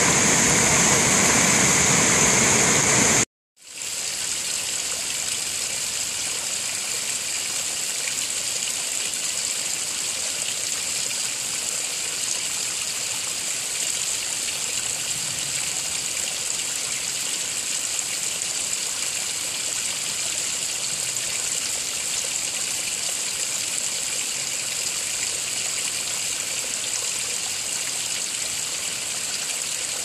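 Small creek cascade rushing over boulders, cut off abruptly about three seconds in. It is followed by a softer, steady hiss of thin streams of water trickling and dripping down a wet rock ledge.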